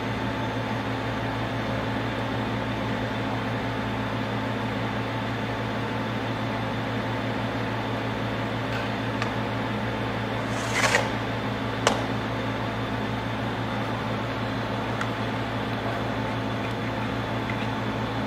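Steady background machinery hum. About eleven seconds in there is a short scrape, and a second later a single sharp metallic clack, as the cast pump casing is picked up and handled.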